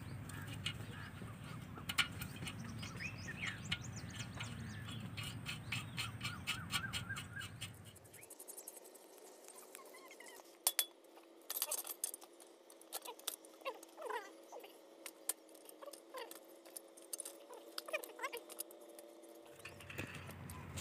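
Faint metallic clicks and clinks as the front-axle nuts are fastened by hand to hold a stone hand-mill (chakki) disc in a bicycle's front fork. A low rumble sits under the first eight seconds and then cuts off abruptly.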